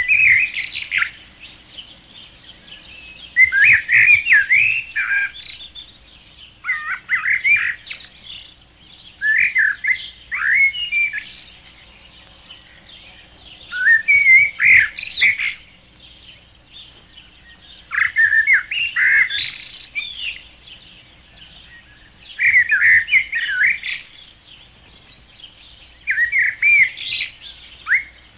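A songbird singing short phrases of quick, swooping whistled notes, each a second or two long, repeated every few seconds with pauses between.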